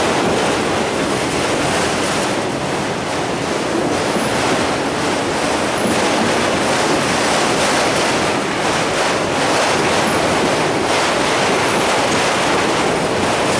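Steady rolling noise of a freight train's autorack cars passing close by, steel wheels running on the rails.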